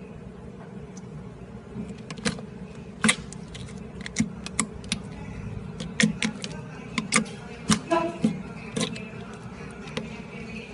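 Slime being squeezed and worked by hand, giving irregular sharp clicks and pops, most of them in the middle of the stretch, over a steady low hum.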